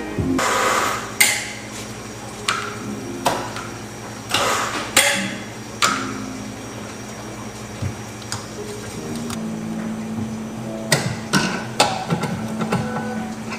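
Espresso-bar work sounds: a series of knocks and short clatters of metal and ceramic, then a low steady hum and sharp clicks near the end as a portafilter is pushed into an automatic tamping machine.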